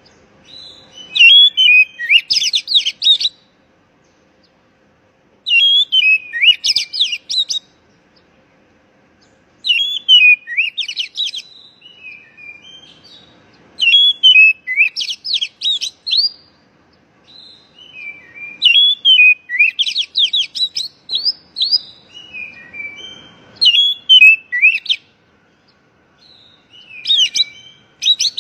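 Oriental magpie-robin (kacer) singing in bursts of rapid, high whistled notes that sweep up and down. The bursts last about two seconds each and come roughly every four seconds.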